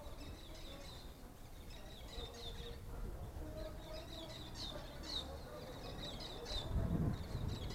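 Birds chirping, many short high chirps repeating, over a low rumble that swells briefly near the end.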